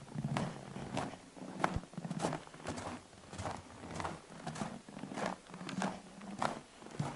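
Footsteps in snow on a boardwalk, at a steady walking pace with a step about every two-thirds of a second.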